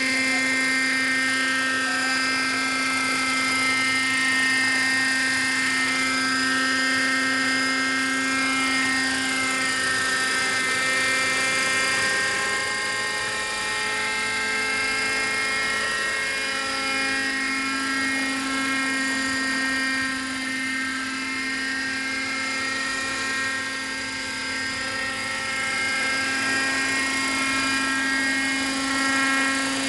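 Radio-controlled model helicopter flying, its motor and rotor making a steady whine whose pitch drifts slightly up and down as the rotor speed changes.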